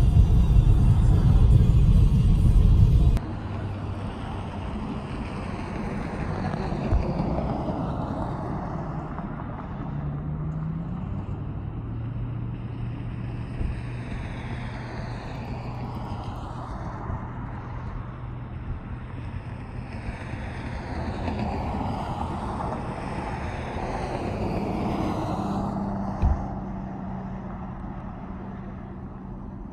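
Road rumble inside a moving car, cutting off abruptly after about three seconds to roadside traffic: cars passing one after another, each swelling and fading with a whoosh.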